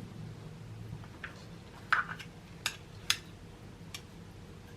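A spoon scraping roasted pumpkin flesh off its skin, with a handful of light clinks and knocks against the dish, the loudest about two seconds in. A faint low hum underneath fades out about a second in.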